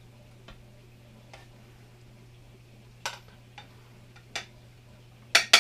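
A metal spatula clicking and scraping against a glass baking dish and a plate as meatloaf is cut and served: a few light ticks, then two sharper clinks near the end. A steady low hum runs underneath.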